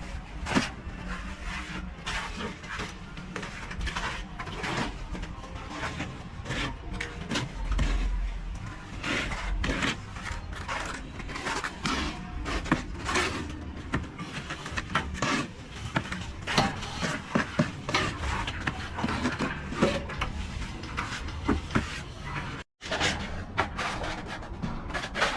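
Irregular scraping and knocking of hand tools on a hard surface, typical of trowel work during plastering, with a brief dropout about three quarters of the way through.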